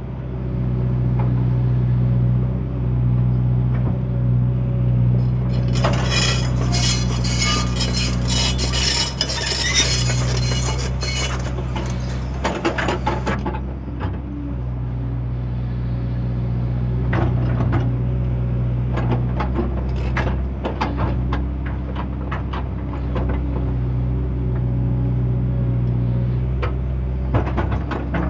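JCB excavator's diesel engine running steadily under load, with loud metallic clanking and scraping from the machine's working parts. The clanking is dense for several seconds about a quarter of the way in, then comes as scattered clanks.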